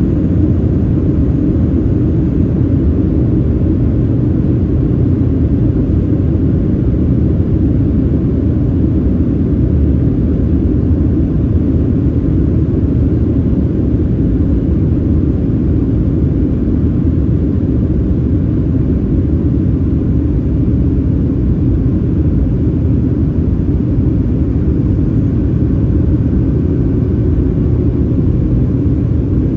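Steady low cabin noise of a Boeing 737-700 in flight on descent: its CFM56-7B engines and the rush of air past the fuselage, heard from a seat over the wing.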